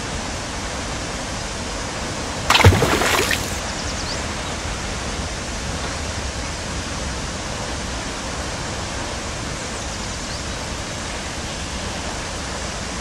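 Steady rush of flowing water from a mountain stream, with a short, louder sound about two and a half seconds in.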